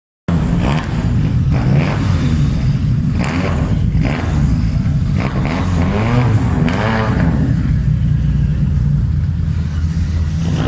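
Car engine on a race track, a steady low rumble with repeated surges of revving over the first seven seconds, then running more evenly.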